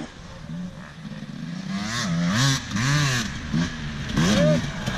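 Enduro dirt bike engine revving up and down, the throttle opened and closed several times in quick swells, loudest about two to three seconds in.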